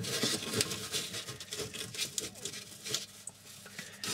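Scratching and rustling of a gloved hand working against the oven's metal cavity beside the element wires: an irregular run of small scrapes and clicks that eases off near the end.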